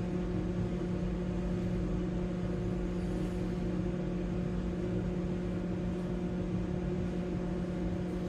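Semi truck's diesel engine idling: a constant hum with a steady tone and low rumble.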